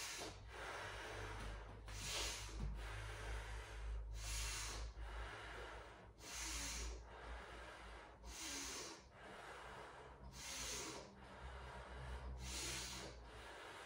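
A woman's slow, audible breathing, a breath sound about every two seconds, paced while she holds a yoga pose for counted breaths. A faint steady low hum lies underneath.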